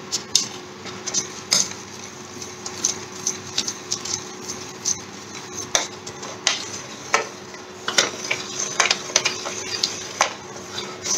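A metal spoon stirring thick fruit purée in a stainless steel saucepan, with irregular clinks and scrapes against the pan's sides and bottom as freshly added sugar is mixed in.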